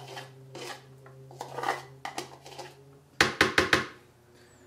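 Soaked pumpkin seeds tipped from a bowl into a Vitamix blender jar, with soft rustling and scraping. About three seconds in comes a quick run of about five sharp knocks as the bowl is tapped against the jar to shake out the last seeds.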